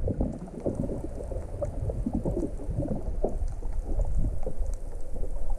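Seawater gurgling and bubbling around a submerged camera, a muffled low churn with many small irregular pops.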